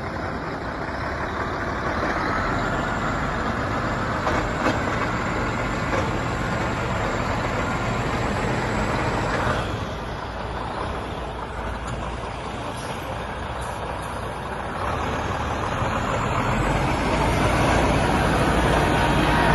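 Scania 124C 470 tipper truck's straight-six diesel idling steadily, getting louder over the last few seconds.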